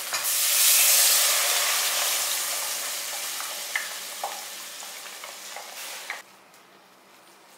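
Food sizzling in hot oil in a cooking pan, loudest at the start and slowly dying down, with a few light clicks from stirring; it cuts off suddenly about six seconds in.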